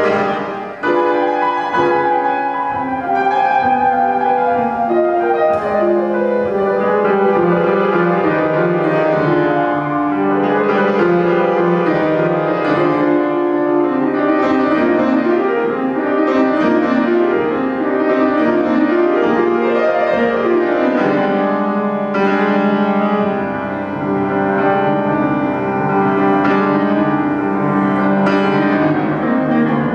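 Solo grand piano playing flamenco piano music, dense and continuous, with quick runs of notes sweeping up and down the keyboard in the middle.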